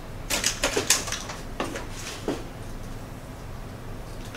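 Hairdressing scissors snipping hair: a quick run of crisp snips in the first second, then a few single snips.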